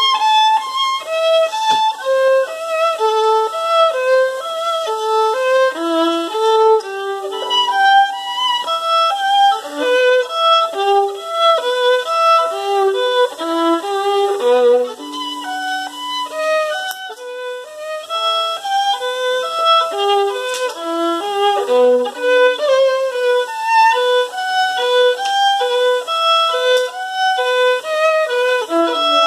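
Solo acoustic violin played with the bow: a quick melody of many short, separate notes with a few longer held ones. The playing grows somewhat softer about halfway through, then picks up again.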